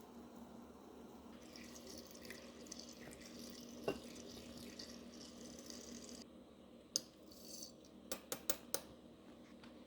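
Kitchen tap running for about five seconds and then shut off, followed by a single click and then a quick run of four or five light clicks and clinks. A faint steady hum sits underneath.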